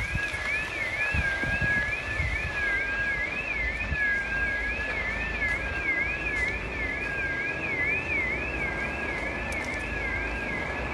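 Two electronic sirens sounding together: one sweeping quickly up and down about twice a second, the other lower and wavering slowly. Wind rumble on the microphone underneath.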